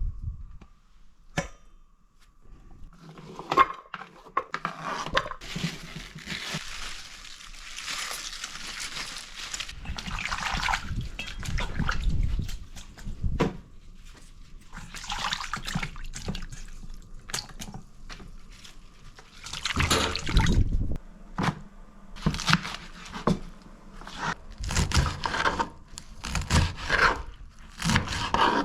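Water running and splashing in a kitchen sink, coming and going in several spells, with scattered knocks and clicks of things being handled in the water.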